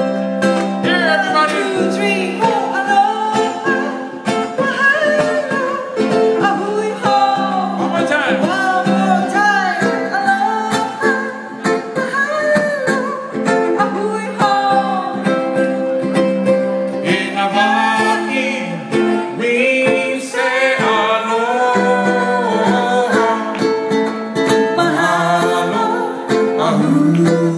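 A Hawaiian song performed live: a woman singing over ukulele and guitar strumming.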